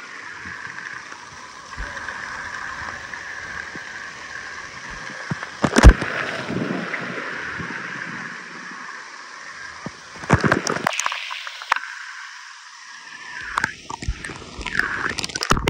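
Spraying and gurgling water from waterpark showers, picked up by a phone microphone that may have water in it, thin and muffled with sputtering dropouts near the end. A sharp knock about six seconds in and a few handling bumps a few seconds later.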